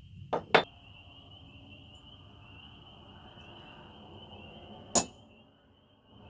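Three sharp metallic taps, two close together near the start and one about five seconds in: a hammer striking a centre punch to mark hole spots on a steel knife tang.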